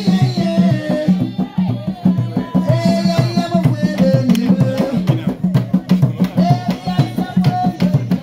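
Fast, steady drumming with singing over it: a voice holding long notes that slide between pitches.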